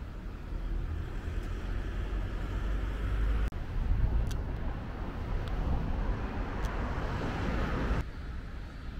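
Road traffic noise: a steady low rumble of passing vehicles, with tyre noise building for a few seconds before it cuts off suddenly near the end.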